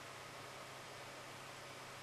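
Steady faint hiss with a low hum underneath: room tone, with no distinct event.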